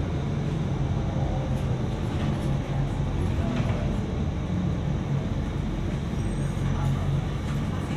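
City bus running, heard on board: a steady low engine hum with road and cabin noise.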